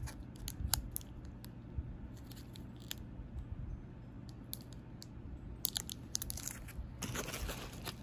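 Scattered light clicks and ticks of a nail brush in its cellophane wrapper being handled, turning into denser crinkling of the plastic wrap near the end, over a low steady hum.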